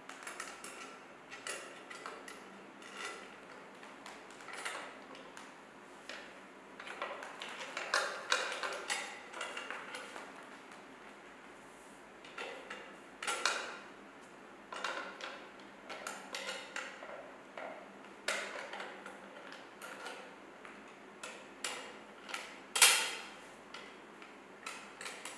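Irregular metallic clicks, taps and clinks of an Allen key, screws and nuts against a dining table's steel leg brackets and braces as a leg is fitted and tightened by hand, with one louder clack a little before the end.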